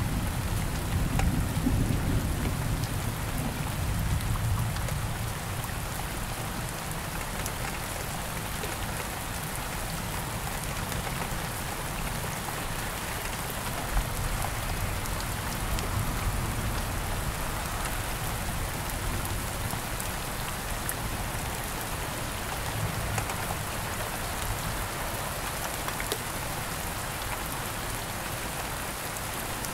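Steady rain hitting the windshield of a moving bus, heard from inside the bus, over a low rumble that is stronger for the first few seconds.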